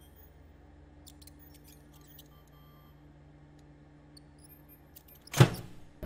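Faint steady electrical hum with a few light clicks from a homemade microwave-based contraption, then a sudden loud burst about five and a half seconds in, fading within half a second, as the machine powers up.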